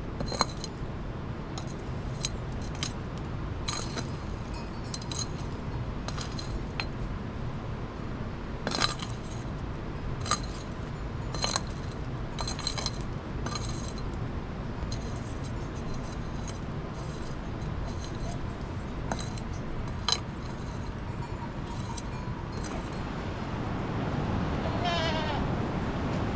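Sharp metal clinks, irregular, about one every second or two, as a long-handled metal ladle is worked over the hearth embers; near the end a goat bleats a few times.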